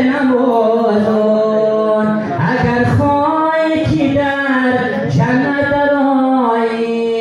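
A man singing unaccompanied into a microphone, a devotional chant with long held notes that bend and waver between short breaths.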